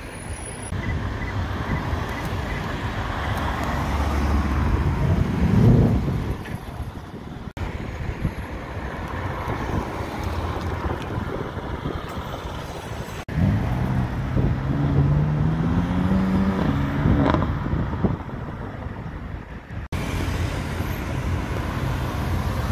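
Sports car engines, among them a Mercedes-AMG GT's twin-turbo V8, accelerating away and passing in city traffic, in several short cuts over tyre and traffic noise. Twice an engine revs up with rising pitch: briefly about five seconds in, and again past the middle in a longer climb that ends in a sharp upward sweep.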